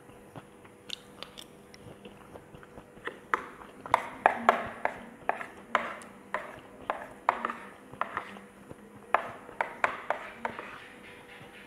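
Metal spoon clinking and scraping against a ceramic plate as leftover fried rice is scooped up: a quick run of sharp clinks, busiest through the middle.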